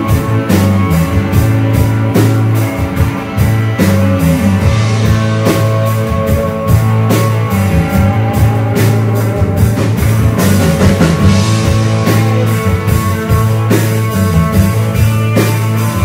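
Live rock band playing an instrumental passage: electric guitar over a drum kit keeping a steady beat.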